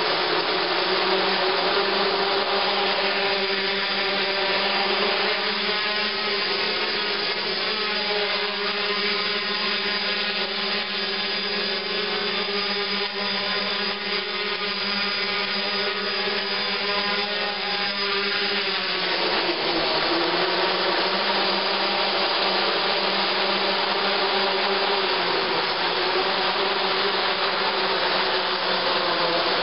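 AeroQuad V2 quadcopter's four brushless motors and propellers whirring steadily. The pitch of the hum shifts about two-thirds of the way through as the throttle changes.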